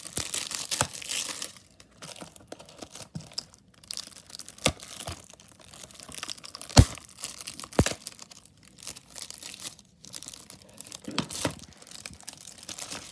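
Plastic wrapping being torn and crinkled off a DVD case, with a few sharp clicks and snaps among the crackling, the loudest about seven seconds in.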